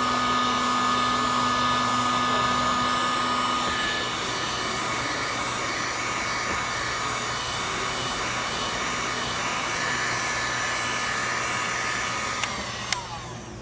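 Electric heat gun running steadily, blowing hot air to shrink heat-shrink tubing over a soldered wire splice. Near the end it is switched off and the fan winds down.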